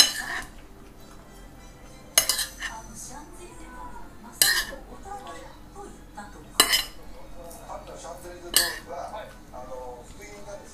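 Metal serving utensil clinking against ceramic plates while stir-fried vegetables are served onto a small plate: five sharp clinks about two seconds apart, with quieter scraping between them.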